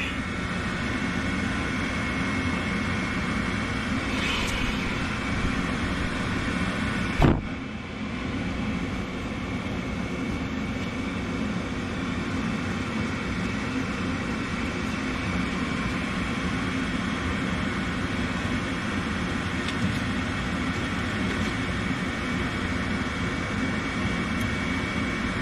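Gas furnace draft inducer motor running steadily, with a steady high whine over the hum: the pre-purge stage of the heating cycle, before the igniter comes on. A single sharp click about seven seconds in.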